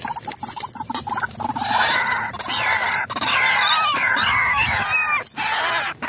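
White-breasted waterhen calls, a harsh chattering run of rising and falling notes that starts about two seconds in, with a few sharp knocks from the wire cage trap being handled.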